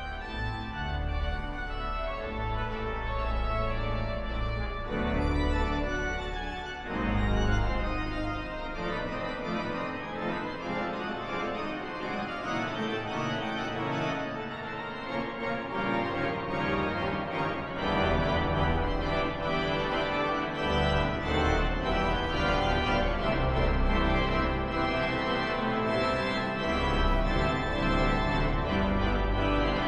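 Father Willis pipe organ playing sustained chords on the manuals, with deep pedal bass notes under them. The bass drops away briefly in the middle, and the texture grows fuller about two-thirds of the way through.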